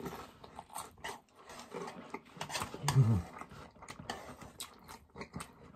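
Close-miked chewing of Korean fire noodles: many small wet mouth clicks and smacks, with a short low grunt about three seconds in.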